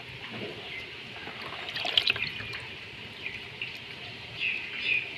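Water splashing and dripping in a shallow plastic basin as a hand scoops out a handful of tilapia fry, with a burst of splashes about two seconds in.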